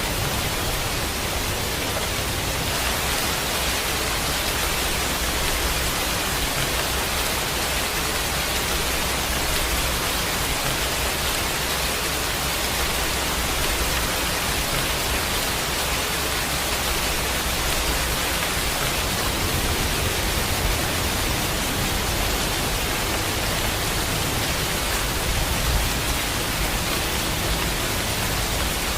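Steady, even downpour of rain: a dense continuous hiss without separate drops standing out.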